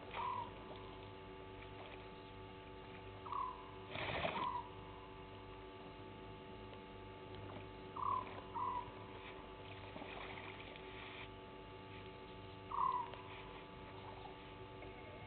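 A small night animal's short call, repeated about five times at intervals of a few seconds, sometimes in quick pairs, over a steady electrical hum. A brief rushing noise comes about four seconds in.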